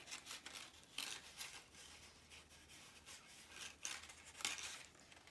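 Faint rustling and scraping of construction paper and tape being handled and pressed together by hand, in irregular strokes with a few sharper ones about a second in and again near the end.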